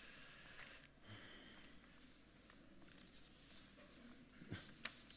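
Near silence: faint room hiss with a few soft clicks from a laptop keyboard, two sharper ones near the end.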